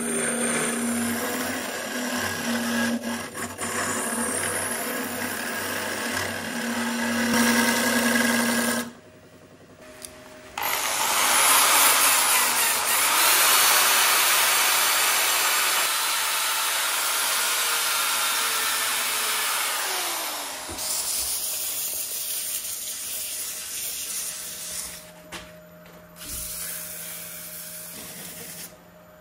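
Wood lathe running with a scraper cutting the spinning hawthorn-burl and epoxy resin platter, the motor humming steadily under the cutting noise. After a short break, a louder, harsher power-sanding noise runs for about ten seconds as a drill-driven sanding pad works the spinning face. Near the end it gives way to quieter hand sanding on the turning lathe.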